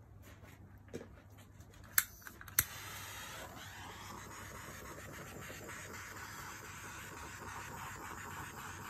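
A small handheld torch: two sharp clicks as it is lit about two and a half seconds in, then a steady hissing flame as it is passed over freshly poured resin to pop the bubbles.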